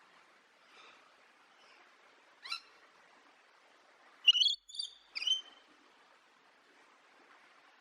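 A bird calling: one short call about two and a half seconds in, then a quick run of three or four louder, higher calls a little after the middle, over a faint background hiss.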